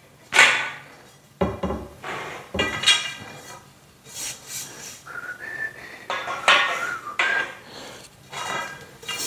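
Steel parts of a metal platform bed frame clanking and ringing as they are set into place: about a dozen separate metallic knocks, each with a short ring, and a brief rising scrape about halfway through.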